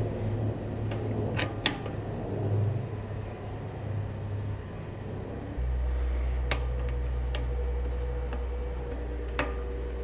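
A few sharp metal clicks and taps as hex keys work the mounting bolt of a Shimano Altus rear derailleur into the frame's derailleur hanger, over a low steady hum that gets heavier about halfway through.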